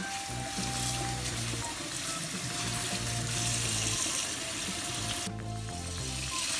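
Kitchen tap running water over chopped napa cabbage in a stainless steel mesh colander as the leaves are rinsed by hand. It makes a steady rushing splash that drops off about five seconds in. Background music plays underneath.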